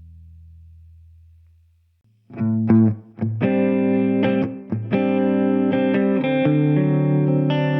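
Electric guitar played through a Valeton GP-200 multi-effects processor. A low held note fades out, then after a short gap a distorted guitar tone starts about two seconds in, with a few picked notes followed by ringing held chords.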